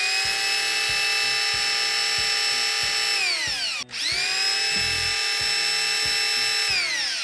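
Corded electric drill driving a priming shaft that spins the oil pump of a Mopar 440 big-block, pre-lubing the engine and building oil pressure. The drill runs at a steady whine, winds down and stops about three and a half seconds in, then spins up again and winds down near the end.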